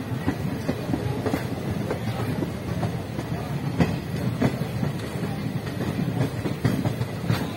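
Diesel-electric multiple unit train running, heard from on board: a steady rumble of wheels on the track with a few sharp clacks at uneven intervals as the wheels pass over rail joints.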